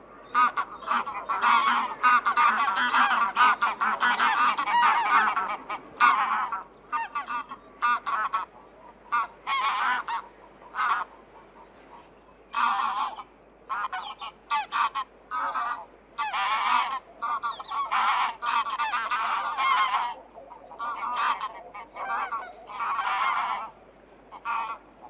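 Geese honking, many overlapping calls at first and then separate honks and short bouts of calling.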